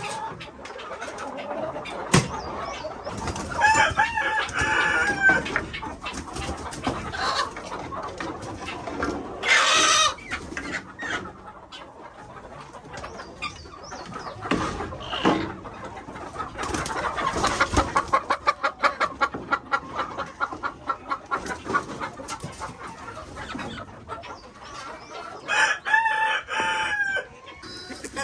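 Chickens clucking throughout, with a rapid run of clucks in the middle and a rooster crowing twice, about four seconds in and near the end.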